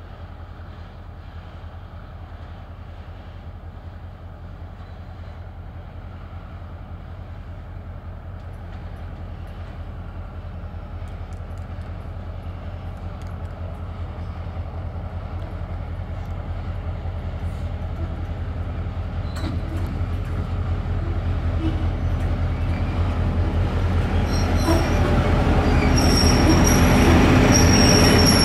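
SŽ class 664 diesel locomotive approaching slowly at the head of a freight train, its low engine drone growing steadily louder as it nears. High-pitched wheel squeal comes in over the last few seconds as it draws level.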